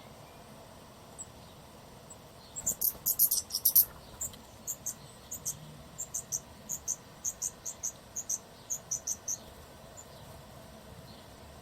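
Nestlings' high-pitched begging cheeps: a dense, loud flurry about two and a half seconds in, then a run of short cheeps two or three a second that stops a couple of seconds before the end.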